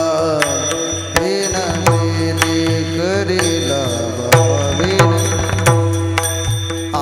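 Warkari kirtan devotional music. A gliding melody line runs over steady held notes, punctuated by regular sharp drum strokes.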